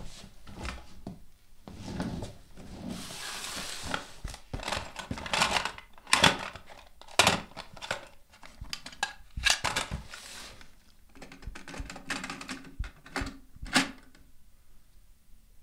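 Sparse, irregular clicks, knocks and clatter with a short burst of hiss, a found-sound texture in an ambient electronic track built from vintage sounds and cassette hardware. It falls quiet near the end.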